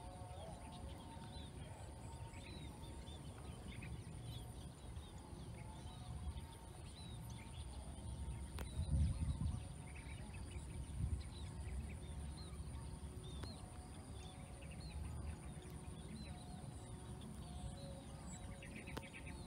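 Birds chirping and calling all around, over a steady high-pitched drone and a low rumble that swells briefly about nine seconds in.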